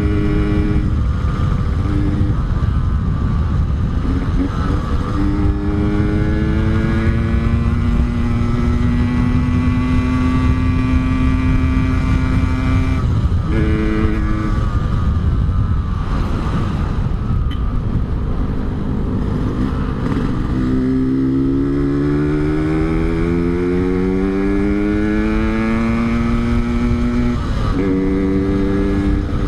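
Yamaha RX-King 135 cc two-stroke single on an Altec C20 aftermarket exhaust, riding under way. The engine pitch climbs under acceleration and drops sharply at each gear change, several times, over steady low wind rumble.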